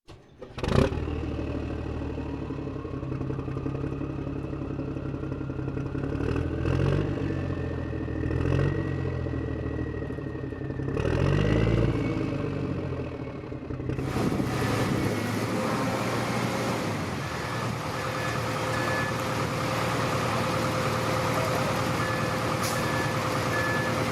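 Heavy-machinery engine sound with a slowly rising whine, changing abruptly partway through to a steadier, denser running noise. Short, evenly spaced reversing-style beeps sound in two runs near the end.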